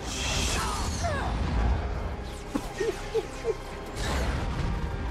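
Action-scene soundtrack of a TV fight: dramatic score with crashing impacts and whooshes. The loudest bursts come in the first second and again about four seconds in.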